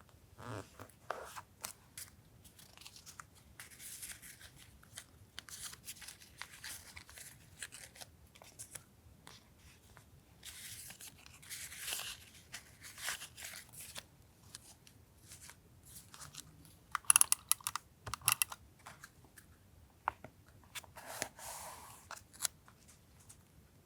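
Paper being torn and handled in long hissing strokes. About two-thirds of the way through comes a quick cluster of sharp clicks or snips, the loudest sounds.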